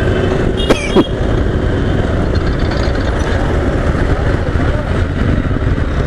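Motorcycle and surrounding city traffic running at low speed, a steady rumble heard through a microphone inside a closed full-face helmet.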